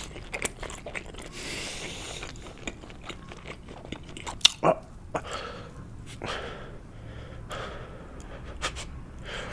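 Close-miked chewing of a mouthful of sushi, wet mouth sounds at about one chew a second with a couple of sharp clicks about four and a half seconds in.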